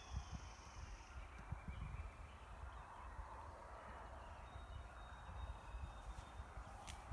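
Faint outdoor ambience: wind rumbling and buffeting on the microphone over a soft, even rustle, with a few thin, faint high tones and one sharp click near the end.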